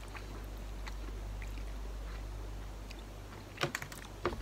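A man eating instant noodles with a metal fork: quiet chewing and small clicks of the fork, with a quick cluster of clicks about three and a half seconds in, over a steady low hum.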